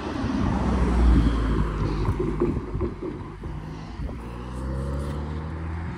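Amtrak diesel locomotive's engine running with a low, steady drone, loudest about a second in.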